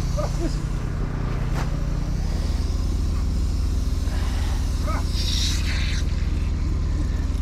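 Mini excavator's diesel engine running steadily, with a short hiss about five seconds in.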